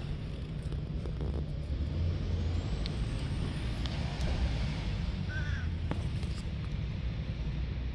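Steady low rumble of outdoor background noise, with a few faint clicks and one brief high chirp about five seconds in.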